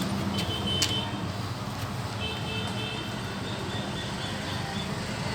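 Steady engine hum of a running motor vehicle nearby, with a few light clicks and short high chirping tones over it.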